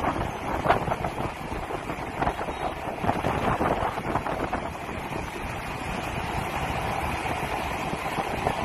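Wind rushing over the microphone of a moving motorbike, a steady rush with brief crackles and knocks in the first few seconds.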